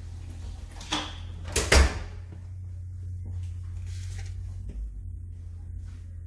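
A sharp knock about a second in, then a louder double knock with a heavy thud just before two seconds in, over a steady low hum in a small room.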